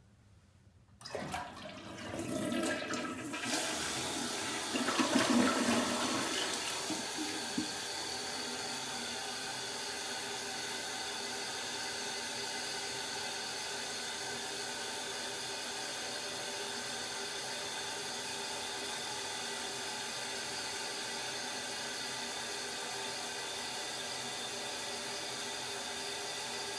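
One-piece toilet flushed with its side lever: a click about a second in, then the rush of the flush swelling and peaking around five or six seconds, then a steady hiss of the tank refilling. A full, normal flush.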